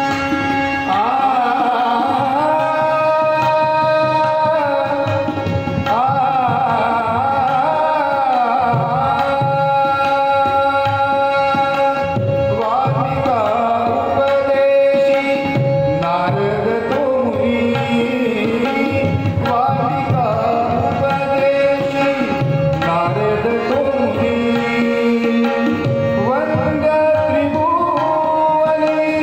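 A male voice sings a devotional bhajan in long bending phrases, accompanied by tabla playing a steady rhythm and a harmonium holding a sustained note underneath.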